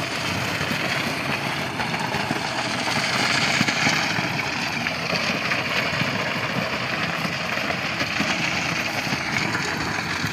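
Tractor engine running steadily while pulling a rotavator through dry soil, a dense, continuous mechanical noise.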